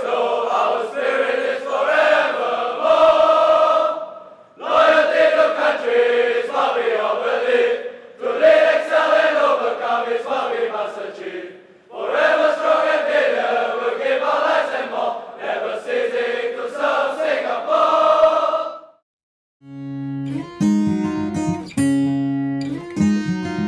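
A group of male voices singing a marching song together, in phrases of about four seconds with short pauses between. It cuts off about nineteen seconds in, and after a brief silence plucked acoustic guitar music begins.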